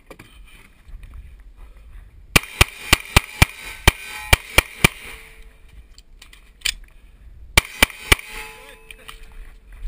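Pistol shots fired in quick strings: about nine rapid shots, a pause, a single shot, then three more in quick succession. A short ringing tone follows each string.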